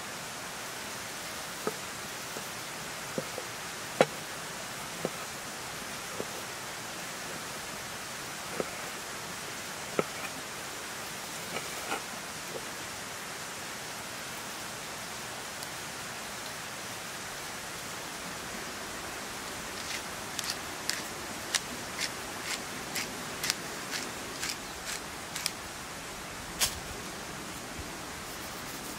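Kitchen knife slicing raw meat on a wooden cutting board: scattered knocks of the blade on the board, then a quicker run of sharp, thin ticks about two a second near the end, over a steady hiss.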